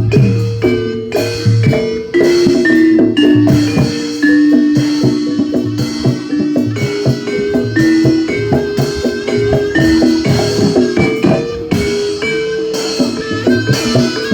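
Loud Javanese barongan accompaniment music: drums and tuned mallet percussion playing a rhythmic melody, with struck notes ringing on.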